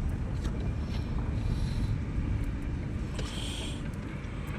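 Low, steady vehicle rumble with a few faint clicks.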